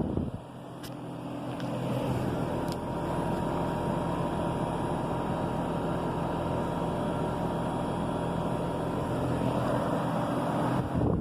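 2019 Bosch 18 SEER inverter heat pump running in cooling mode: a steady hum from the compressor and fan, holding several steady tones. It grows a little louder over the first two seconds, with two faint ticks in the first three seconds.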